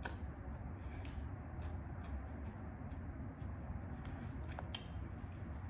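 Quiet chewing of food with a few soft mouth clicks, over a steady low room hum.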